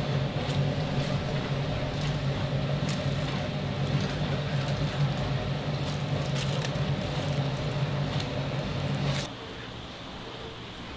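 Metal tongs clicking and scraping as whole fried chickens are lifted and stacked on a steel wire rack, over a steady low machine hum. The hum drops away sharply about nine seconds in.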